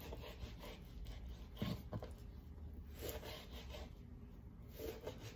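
Knife slicing boneless raw chicken into thin strips on a chopping board: faint, scattered cutting strokes with a rubbing, scraping sound.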